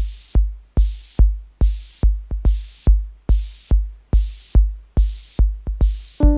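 Electronic intro music: a steady drum-machine kick at about two and a half beats a second, with a hissing high cymbal swell between the kicks. Synth chords come in right at the end.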